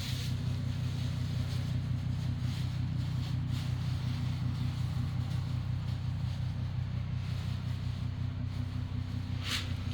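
A steady low mechanical hum from a running motor, even throughout, with a brief hiss or scrape near the end.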